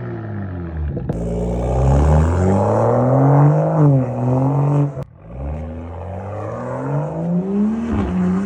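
Car engine accelerating hard through the gears: its pitch climbs steadily and then drops sharply at each upshift, about a second in, about five seconds in and again near the end.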